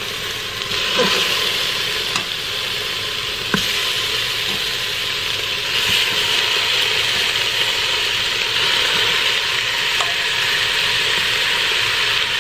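Raw chicken drumsticks sizzling as they are laid into hot oil with sautéing onion and garlic in the steel inner pot of an electric pressure cooker on its sauté setting. The sizzle is steady and grows louder about halfway through as more pieces go in. A few faint clicks come as pieces are set down.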